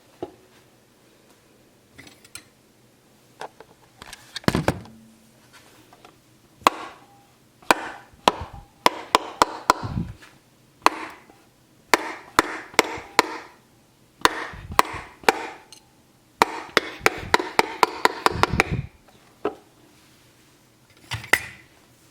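A Freddy Fazbear alarm clock being smashed: repeated sharp blows, some single and many in fast flurries, with a few heavier thuds among them and short pauses between the bouts.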